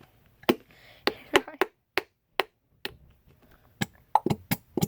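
A run of sharp, irregular clicks and knocks from a plastic glue bottle being tapped and squeezed to force out the last of the glue.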